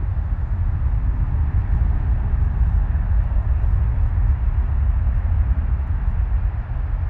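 Boeing 737's twin CFM56 turbofan engines running as the jet taxis past: a steady deep rumble with a jet hiss over it, swelling slightly midway as it passes closest.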